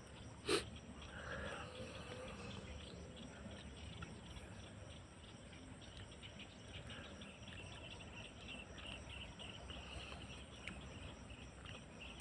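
Faint insects chirping steadily in the background, with one sharp click about half a second in.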